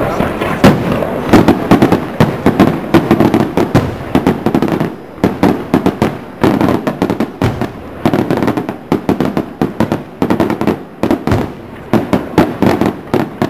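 Aerial fireworks going off in quick succession: a dense run of sharp bangs and crackling from shell bursts, several a second.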